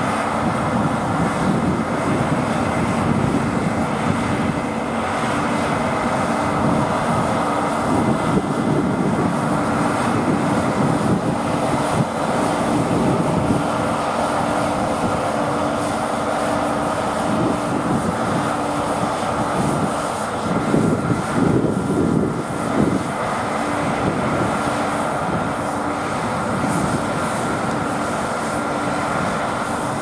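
New Holland CR10.90 twin-rotor combine harvester running under load while harvesting barley: a steady diesel engine drone with held mechanical tones above it. It is a little louder and choppier for a couple of seconds about two-thirds of the way through.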